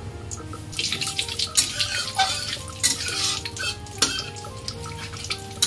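Cumin seeds and bay leaves sizzling in hot mustard oil in a steel kadhai. From about a second in until about four seconds in, a spatula stirs them and scrapes the pan, with a few sharp clinks against the metal.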